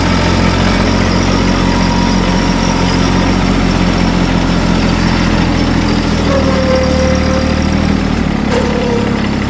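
Compact loader tractor's engine running steadily, heard from the driver's seat. About six seconds in, a higher steady whine joins the engine note.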